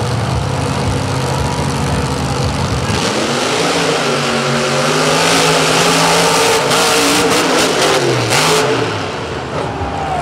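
Two monster truck engines in a side-by-side drag race: held at a steady rev, then about three seconds in they rise sharply in pitch and run hard at full throttle, dropping in pitch near the end as the trucks lift off.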